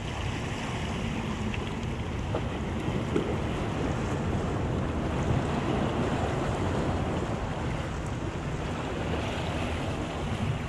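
Wind buffeting the microphone over the steady wash of ocean surf against the jetty rocks, an even noise with no distinct events.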